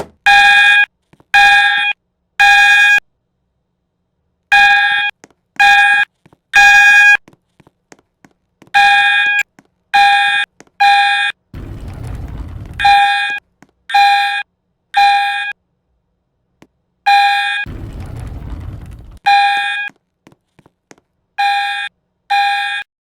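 Fire alarm sounding in a temporal-three pattern: three loud half-second beeps, a pause, then three more, over and over, which is the standard evacuation signal. Twice a fainter low rushing noise lasting about a second and a half fills a pause.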